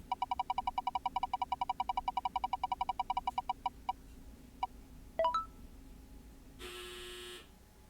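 Mouth-made sound effect: a fast train of short, high pitched pulses, about ten a second, slowing and stopping near four seconds, then a quick upward chirp and a short buzzing tone near the end.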